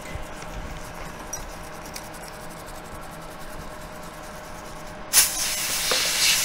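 A faint steady hum with a few light ticks. About five seconds in, a loud aerosol spray hiss starts suddenly as a spray can is sprayed onto the freshly soldered ESC circuit board to clean it.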